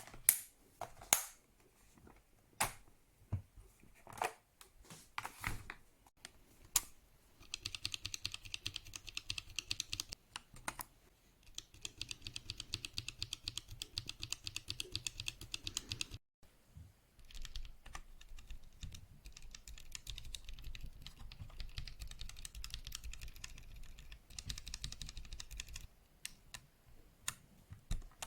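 Akko World Tour Tokyo R2 3098 mechanical keyboard being typed on: a handful of separate key presses at first, then long runs of fast typing, broken by a short pause about 16 seconds in.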